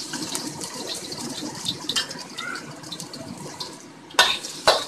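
Minced garlic sizzling in hot oil in a wok, a steady crackling hiss. Near the end a spatula strikes and scrapes the wok twice.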